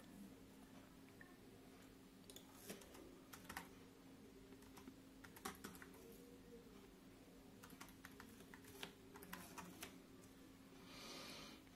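Faint typing on the Raspberry Pi 400's built-in keyboard: keystrokes come in irregular bursts, with pauses between them. A soft rush of noise comes near the end.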